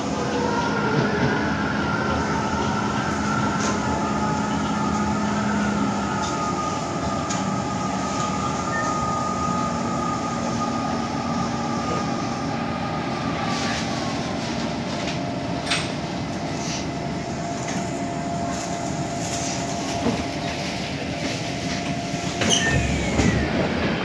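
Kawasaki C151 metro train slowing to a stop at a platform: a steady whine from the running gear sinks slowly in pitch and fades out about fifteen seconds in as the train halts. A few sharp clicks and knocks follow, and a louder burst with a falling tone comes near the end.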